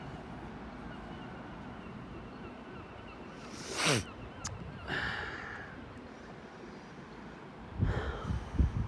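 Gulls calling, with a loud cry just before four seconds in and another about a second later, over steady station background noise. A few low thumps come near the end.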